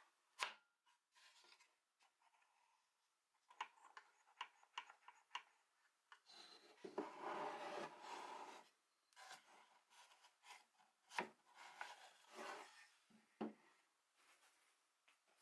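Faint handling of small wooden parts: scattered light clicks and knocks, with a rubbing scrape of wood on wood lasting about two seconds midway.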